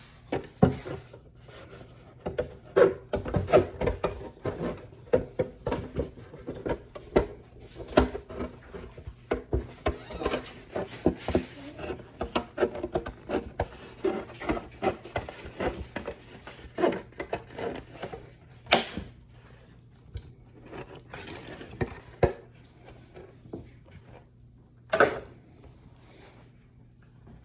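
Trimming thin plastic helmet-kit parts: a dense run of irregular snips, clicks and snaps from cutting and handling the sheet, thinning out for a few seconds after the middle, with a couple of louder single snaps.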